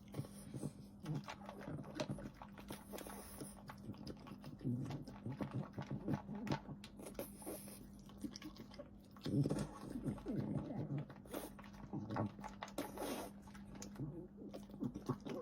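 French bulldog eating noisily: a dense run of quick wet smacks and clicks of chewing and licking, with a louder stretch about nine seconds in.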